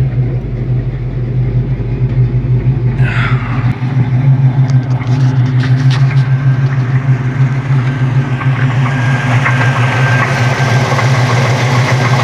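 A 1972 Chevelle engine running just after starting, with a rhythmic knock that the owner takes for a rod knock, a failing connecting-rod bearing. A brief falling squeal comes about three seconds in, and a metallic clatter comes up in the second half.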